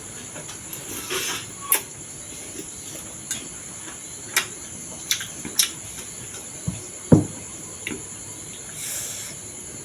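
Short scattered clinks and taps of a spoon and fork against a bowl of thukpa as eating begins, about eight in all, over a faint steady high-pitched hiss.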